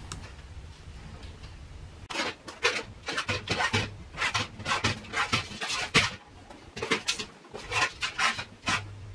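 Sliding screen door frame being handled and shifted: irregular rubbing, scraping and light knocking sounds starting about two seconds in, over a low hum.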